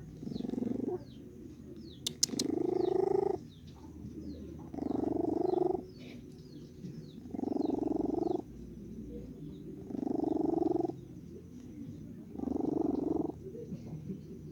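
Domestic cat snoring in its sleep: a rasping snore about a second long, repeating about every two and a half seconds, six times. A sharp click about two seconds in, and faint high chirps throughout.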